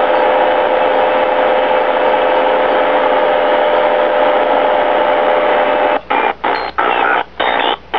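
Sony ICF-2002 shortwave receiver's speaker hissing with static and a steady whistle. About six seconds in, the manual tuning button is pressed: the whistle stops and the static cuts out briefly again and again, about twice a second, as the receiver steps through frequencies.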